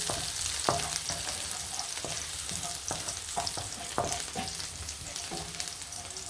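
Garlic sizzling in hot oil in a pan as it is sautéed. A utensil stirring it scrapes and knocks against the pan at irregular intervals, some strokes with a short metallic ring.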